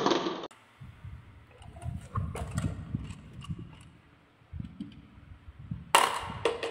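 Glass marbles clattering in a plastic toy truck bed, stopping abruptly about half a second in. Then come low handling rumbles and a few light clicks, and near the end a hand scoops the glass marbles, which clink sharply against each other and the plastic.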